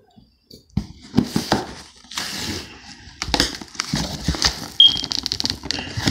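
Cardboard shipping box being slit along its packing tape and pulled open: knocks and scrapes of the cardboard flaps, and a fast crackling rip of packing tape coming away about five seconds in.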